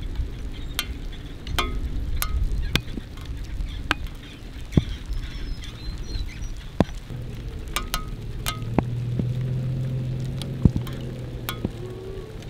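Toyota FJ Cruiser's 4.0-litre V6 running as the truck rolls slowly across grass. The low engine hum swells for a few seconds past the middle, with scattered sharp clicks and crackles throughout.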